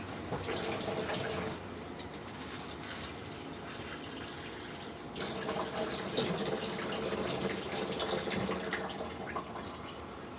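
Water running from a tap into a container, louder at the start and again through the middle.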